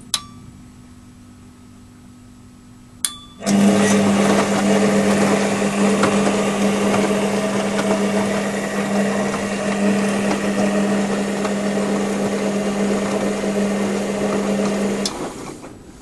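Two sharp relay clicks, then a washing machine's drum motor starts about three and a half seconds in. It runs steadily with a strong hum for about eleven seconds, turning the drum in a wash tumble to mix in the detergent, and cuts off near the end.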